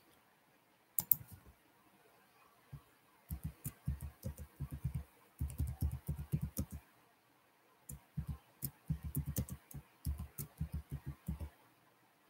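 Typing on a keyboard: quick runs of keystrokes, several a second, with short pauses between runs, and a few separate clicks about a second in.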